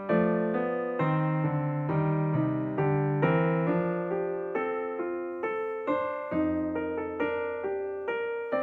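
Solo piano music: a gentle melody with chords, notes struck in an even rhythm and each left to fade.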